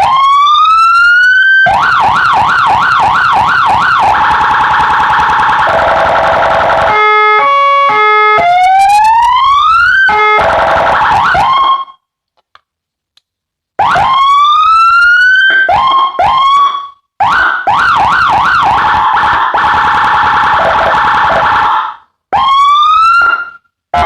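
Electronic police siren of the Indonesian highway-patrol (PJR) type cycling through its tones: a rising whoop, a fast warbling yelp, a steadier tone, stepped two-tone hi-lo notes, another rising sweep and short chirps. It stops for about two seconds around the middle, then repeats whoops, chirps and the yelp.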